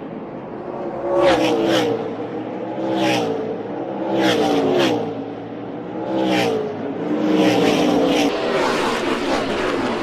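NASCAR Gen 6 stock cars' V8 engines at full speed passing the camera one after another, about half a dozen times, each engine note climbing and then dropping in pitch as the car goes by. Toward the end the passes run together into a denser rush, as of a pack going by.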